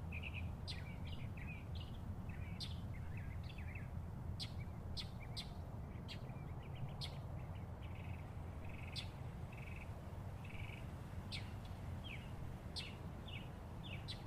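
Woodland songbirds chirping and calling in many short notes and quick high sweeps, over a steady low rumble.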